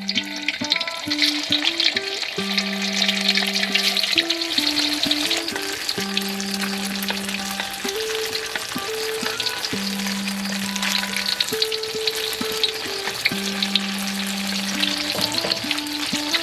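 Food sizzling in hot oil while being stirred, with many small clicks and scrapes of the spatula in the pan. Background music of slow, held notes plays over it.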